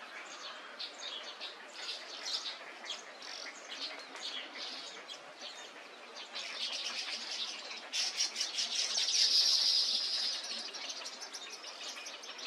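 Many birds calling together: a stream of short high chirps and chatter that grows denser and louder about two-thirds of the way through.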